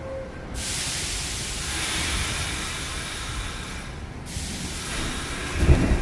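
Subway train's air brakes hissing as they release, one even hiss of about three and a half seconds that cuts off abruptly. Near the end the train's low rumble begins as it starts to pull out.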